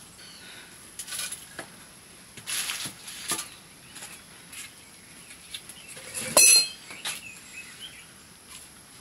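Scattered knocks and clinks of metal cooking pots and utensils, with one louder ringing clink about six and a half seconds in.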